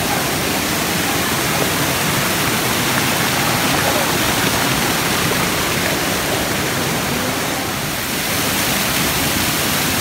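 Small waterfall pouring down a rock face and splashing over boulders: a steady rush of falling water.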